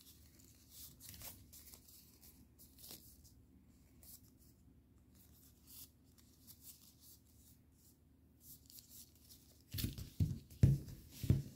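Faint rustling and crackling of a sheet of paper being folded by hand into an origami jet. Near the end come louder rustles and bumps as the folded model is pressed flat against the table.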